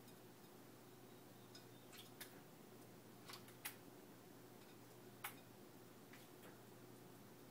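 Quaker parakeets bathing in a shallow water dish: a handful of faint, sharp ticks and small splashes, the loudest about halfway through, over a low steady hum.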